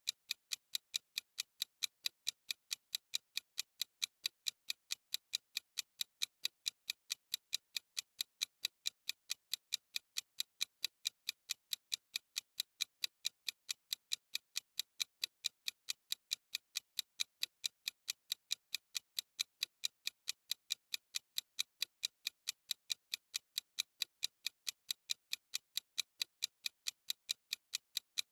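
Steady, even clock-like ticking from a countdown timer's sound effect: several crisp, high ticks a second that keep an unchanging rhythm.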